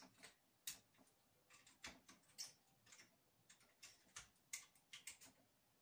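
Faint, irregular clicks and light knocks, about a dozen of them, from a circuit board and its wire connectors being fitted by hand onto a heater test rig.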